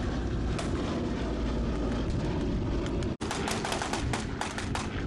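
Low drone of a B-17 Flying Fortress's radial engines passing overhead, mixed with scattered gunfire. About three seconds in, an abrupt cut to rapid gunfire of blanks from rifles and machine guns.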